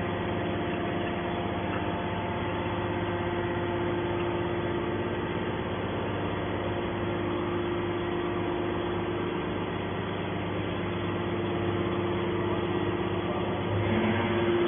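Aluminium can baler running: a steady machine hum with a constant tone and no change in speed.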